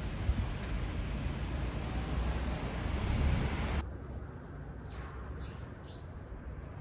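Steady low outdoor noise with a few short bird chirps over it. It cuts off abruptly just under four seconds in to a quieter background where small birds chirp repeatedly.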